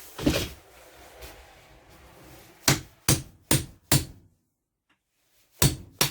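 Hatchet striking a flat-end pin punch to drive a stuck roller pin out of a UTV clutch spider held in a vise. There is one blow near the start, four sharp strikes in quick succession in the middle, and two more near the end, the last with a brief metallic ring. The pin is tight and does not come free.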